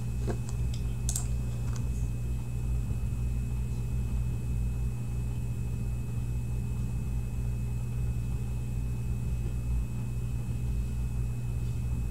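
A steady low hum with a thin, faint high whine above it. A few light clicks come in the first two seconds.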